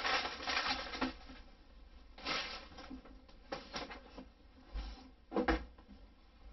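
Packaging being handled: a plastic bag of perlite and a cardboard box rustling and knocking, in several short bursts about a second apart.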